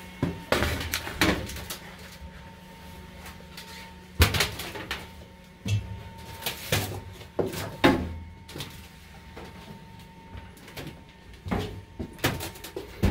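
Irregular knocks, thumps and scrapes of someone clambering over the wing spar inside a Halifax bomber's metal fuselage, the sharpest knock about four seconds in. A steady low hum runs underneath.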